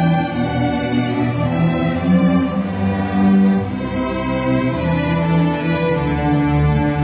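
A school string orchestra of violins, cellos and double bass playing classical music, bowing long sustained notes.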